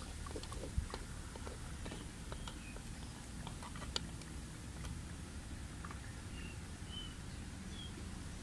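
Small clicks and taps from hands working a ball of plasticine over a wire armature, over a low steady background rumble. Near the end there are three short high chirps, like a small bird calling.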